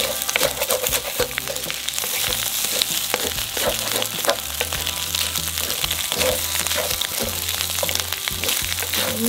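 Pineapple fried rice with shrimp frying over high heat, sizzling steadily, while a spatula is stirred through it with frequent short scrapes and clicks against the pan.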